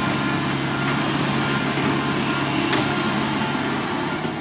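Komatsu PC130 hydraulic excavator running as it digs, its diesel engine holding a steady low note.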